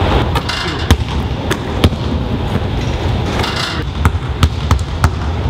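Basketballs bouncing on a hardwood gym floor: several sharp, irregularly spaced bounces over a steady low hum.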